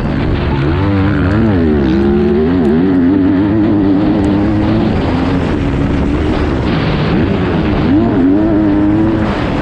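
Yamaha YZ250F motocross bike's single-cylinder four-stroke engine revving hard and constantly changing pitch as the throttle is worked, with deeper drops in revs about two seconds in and again near seven seconds before it climbs back up.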